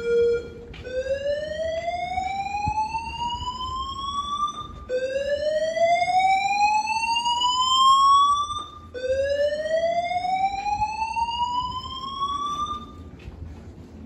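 Notifier AMG-1 voice-evacuation fire alarm speakers sounding the slow-whoop evacuation tone: a short steady tone, then three rising whoops of about four seconds each. This is the evacuation signal that runs ahead of the recorded evacuation message.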